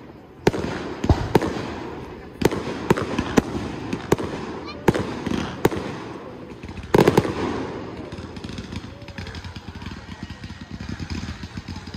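Fireworks display: aerial shells burst one after another in sharp bangs, with the loudest pair about seven seconds in. A quieter, rapid crackling follows over the last few seconds.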